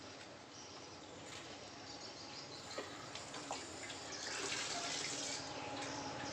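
Kitchen tap running into a sink during hand dishwashing, with a couple of light clicks near the middle; the flow grows louder about four seconds in.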